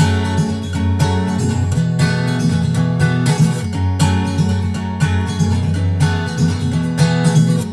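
Instrumental acoustic guitar music.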